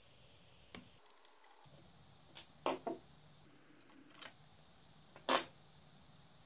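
A few short, sharp metal clicks and clacks as a screwdriver works on a chainsaw and a metal plate is lifted off its body. The loudest, a single clack about five seconds in, comes as the plate is laid down on the wooden bench.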